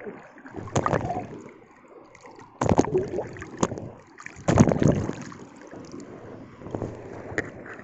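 Sea waves washing and splashing around a wading angler, with wind buffeting the microphone; three louder surges of water about 1, 3 and 5 seconds in, then a steadier wash.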